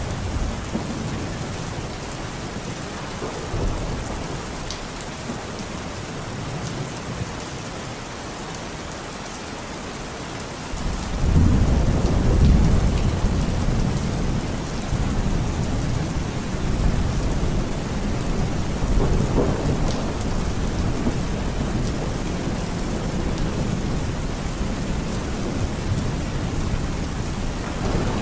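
Heavy rain falling steadily in a thunderstorm. About eleven seconds in, thunder starts suddenly with a low roll. It is loudest a second or two later and keeps rumbling under the rain.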